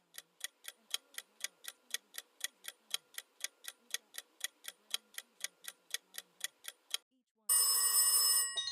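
Quiz countdown-timer sound effect: even clock-like ticks about four a second, then a loud buzzer-like ring about seven and a half seconds in as time runs out, followed by a quick rising run of chime tones near the end.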